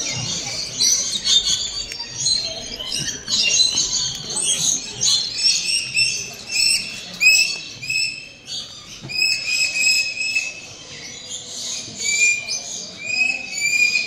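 A dense chorus of many small aviary birds chirping and calling at once: overlapping short, high notes with no pause.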